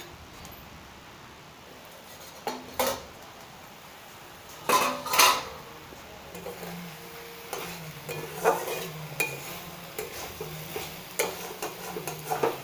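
A stainless steel lid is lifted off a steel kadai with metal clinks, the loudest about five seconds in. A metal spatula then stirs and scrapes boiled snails, ridge gourd and onion in the pan in repeated strokes.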